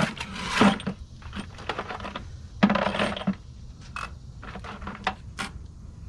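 Steel lug nuts clinking and rattling against each other as a handful is scooped out of a bucket. There are two longer rattles, one at the start and one about two and a half seconds in, then scattered single clinks.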